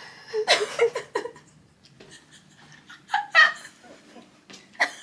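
A person laughing in a short burst about half a second in, with another brief laugh or vocal sound around three seconds in.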